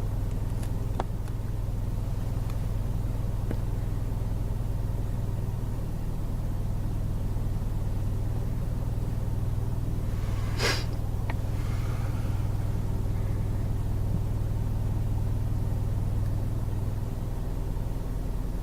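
Steady low rumble of an idling car engine, heard from inside the car, with a sharp click about ten and a half seconds in and a couple of faint clicks early on.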